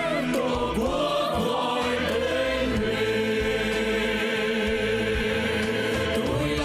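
Male and female voices singing a Vietnamese patriotic song together in harmony over backing music, holding long sustained notes.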